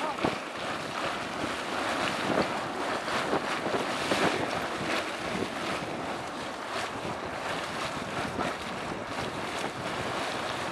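Blue Mud Steam Vent hissing steadily as steam rushes out of a hole in the ground, with irregular short crackles through the hiss.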